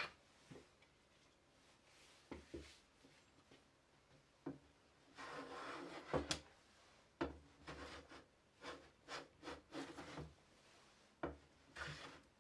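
Hand plane shaving the edge of a maple board in a series of short, uneven strokes, with one longer stroke about halfway through and a few light knocks between strokes.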